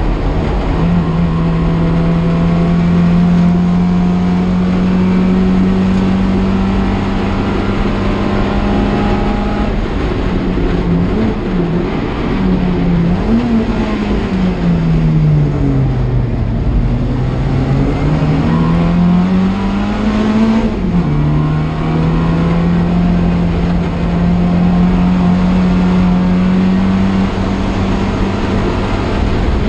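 A classic Mini race car's A-series four-cylinder engine heard from inside the cabin at racing revs. The engine note holds steady, then rises and falls several times before sinking to its lowest revs. It climbs again and drops sharply at a gear change about two-thirds of the way through, then holds steady at high revs again.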